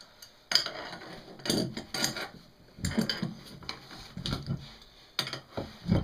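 Irregular metal clinks, knocks and scrapes as a heavy steel mould can is handled before being split open, the sharpest knocks about half a second in and near the end.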